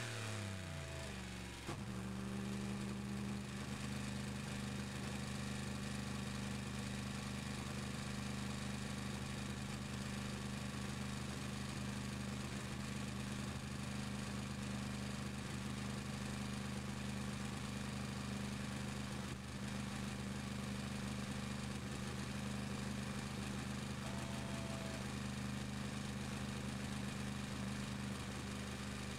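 Chevrolet Corvette C7.R's 5.5-litre V8 heard from inside the cockpit. The revs drop in steps over the first couple of seconds, then the engine holds one steady, unchanging note at constant revs for the rest of the stretch. A brief higher tone sounds about 24 seconds in.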